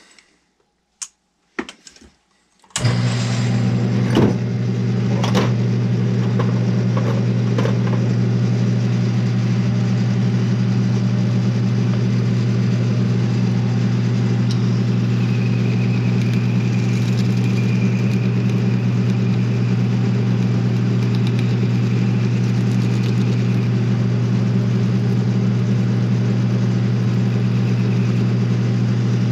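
A few handling clicks, then a metal lathe's electric motor switches on about three seconds in and runs with a loud, steady hum, its chuck spinning a hickory ramrod end. A hand chisel scrapes the turning wood, and a faint higher tone comes and goes in the middle.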